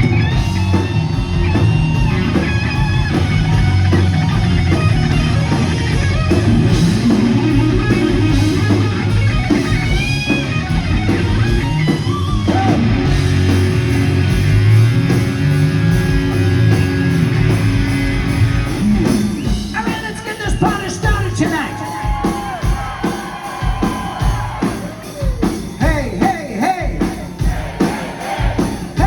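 Hard rock music with electric guitar, bass and drums, dense and loud. After about two-thirds of the way through it thins out and a singing voice comes to the fore.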